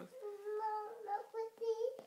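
A young child singing a short wordless tune in a high voice: a few held notes, the longest in the first second.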